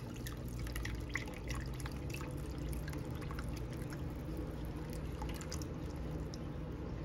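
Stock pouring from a carton into a pan of broth: a steady trickle with small splashes and drips.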